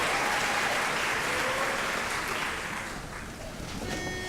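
Audience applauding, dying away over about three seconds. Near the end, a single steady note begins.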